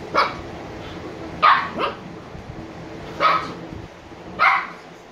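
Shiba inu puppies barking: five short barks at uneven intervals, two of them in quick succession about a second and a half in.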